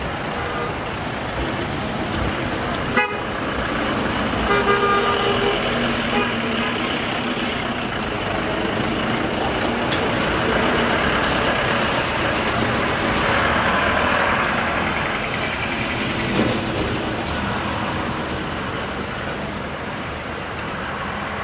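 Darjeeling Himalayan Railway steam locomotive standing with steam up beside road traffic, giving a steady hissing and running noise. A horn toots in short blasts about four to six seconds in.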